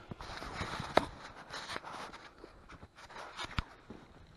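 Close-up rustling and handling of fabric and gear, with two sharp clicks, about a second in and again past three seconds.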